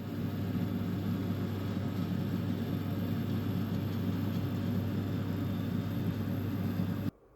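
A steady low mechanical rumble with a constant hum, cut off abruptly near the end.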